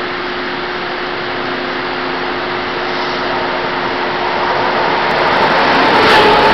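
Taiwan Railways E1000 push-pull Tze-Chiang express pulling into an underground station. The rumble of the approaching train grows steadily louder and is loudest as the cars run past the platform near the end, with crackling high clicks and a few higher tones. A low steady hum lies underneath and stops about five seconds in.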